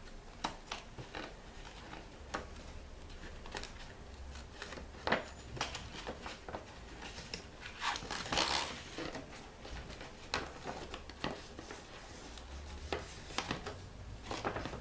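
Paper rustling and crinkling, with scattered light taps and clicks, as a folded paper triangle is pressed and glued down onto a paper-covered box. A longer rustle comes about eight seconds in.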